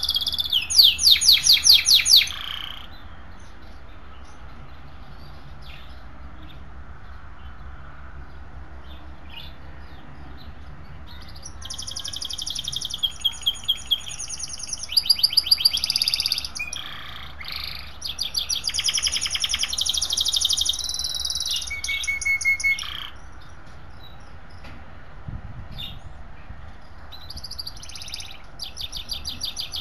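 Small songbird singing in fast trilled, warbling phrases. One bout in the first couple of seconds, a long stretch of song from about twelve seconds in, and more near the end, with quiet pauses between. A faint low hum runs underneath.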